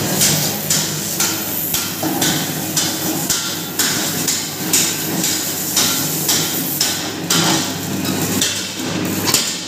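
Hammer blows on metal, a steady run of about two strikes a second, over a steady low hum.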